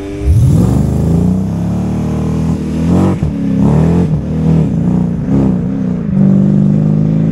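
Sports car engine revving hard as the car accelerates away, its pitch sweeping sharply up, dropping at a gear change about three seconds in, then rising and falling several more times before holding a steady high note.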